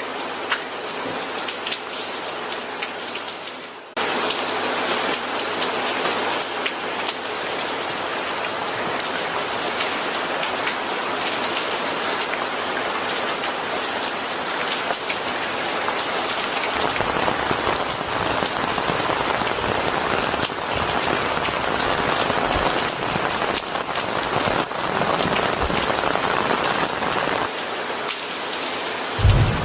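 Steady heavy rain pattering on a surface. About four seconds in it cuts abruptly to a louder, denser downpour. A deep low rumble sits under it through the second half, and a burst of thunder breaks in at the very end.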